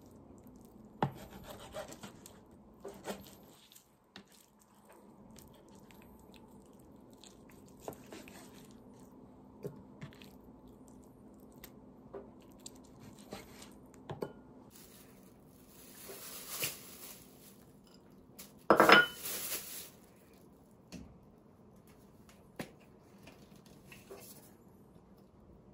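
Kitchen knife slicing raw chicken breast on a plastic cutting board: scattered single knocks of the blade against the board with soft slicing and rubbing in between. About three-quarters of the way in there is a brief, louder rustling noise.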